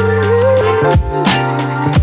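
Background music with a steady beat: a bass line, regular drum hits and a wavering melody.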